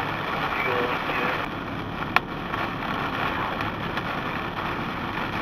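Steady road and engine noise heard from inside a car driving in the rain, with one sharp click about two seconds in.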